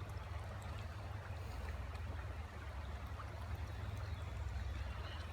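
Creek water running over rocks: a steady rushing hiss over a constant low rumble.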